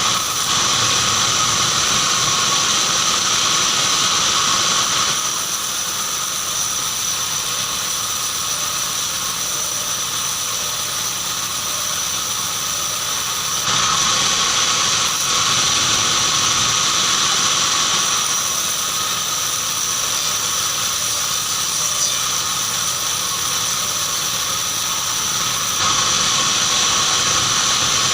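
Band sawmill running with a steady high-pitched whine and hiss, cutting keranji hardwood; it grows louder three times, for about four or five seconds each, near the start, midway and near the end.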